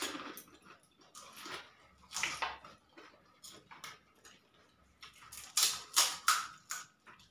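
Crisp, hollow fuchka (pani puri) shells crackling as they are broken open with a thumb and crunched while eaten. The crackles come in a few short bursts, the sharpest cluster about five and a half to seven seconds in.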